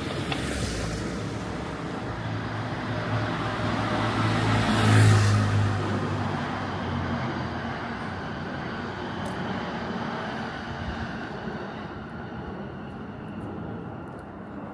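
A car driving past, its engine hum and tyre noise swelling to loudest about five seconds in, then fading.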